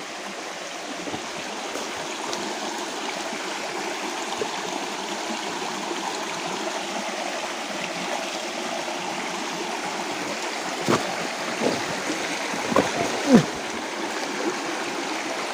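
Rocky forest stream flowing over stones, a steady rush of water. A few short, sharp sounds come between about eleven and thirteen seconds in, the loudest near the end.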